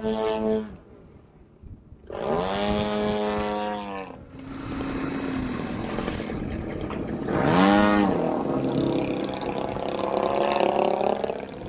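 Radio-controlled aerobatic propeller plane's engine and propeller overhead, throttled back almost to silence and then opened up in bursts. The pitch swoops up about two seconds in and falls away, swoops up and down again near the eight-second mark, then holds a steadier drone near the end.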